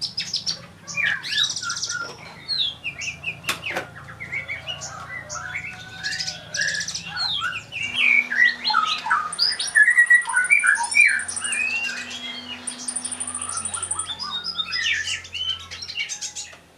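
Kolibri ninja sunbird singing in full song: a fast, varied stream of high chirps, twitters and short trills with no breaks, including two long, high buzzy trills in the middle, over a faint low hum.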